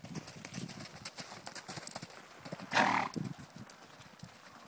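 Hoofbeats of a ridden horse moving over a soft dirt arena, a run of irregular dull thuds, with one louder short burst of noise about three seconds in.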